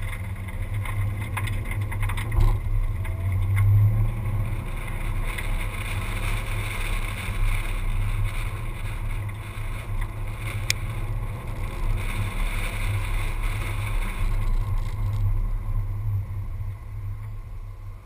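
Car driving on a track, heard from a camera mounted outside the door: wind rushing over the microphone over a steady low engine and road rumble. The hiss eases about fourteen seconds in.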